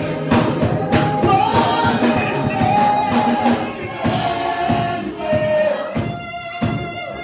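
Live gospel music: voices singing over drums keeping a steady beat.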